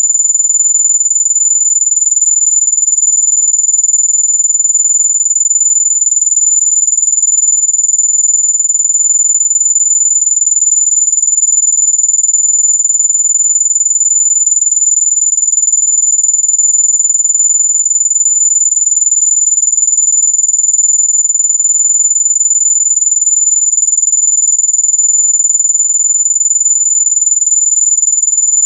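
Electronic mosquito-repellent tone: a single loud, very high-pitched tone held perfectly steady, without a break or change in pitch.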